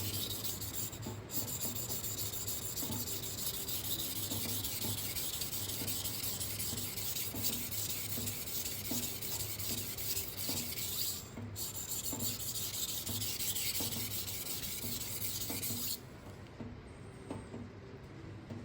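Kitchen knife blade stroked quickly back and forth on a 1000-grit whetstone, a continuous gritty scraping with two brief breaks. It stops suddenly near the end. These strokes work the second side of the edge after a burr has been raised on the first.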